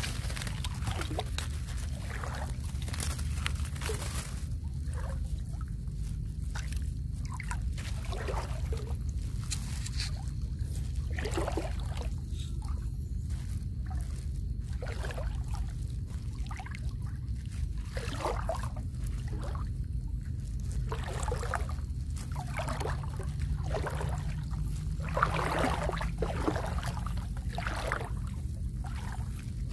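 Water sloshing and splashing in irregular strokes, one every second or two, as the water is stirred by movement through it, over a steady low rumble.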